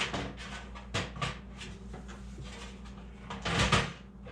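Knocks, clicks and scraping of a motherboard being shifted inside a computer case to line it up with the screw holes, with a louder rustling scrape a little over three seconds in. A steady low hum runs underneath.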